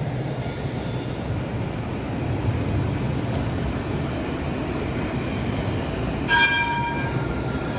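Tram running with a steady rumble. About six seconds in, a short ringing warning signal sounds and fades away.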